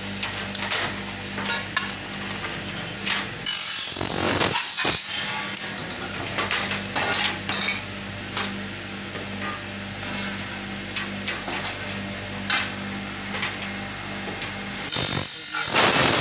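Aluminium cutting machine cutting an aluminium window profile: two short, high-pitched cuts, the first about three and a half seconds in and the second near the end. Between the cuts come scattered clicks and clatter of the metal strip being handled, over a steady low hum.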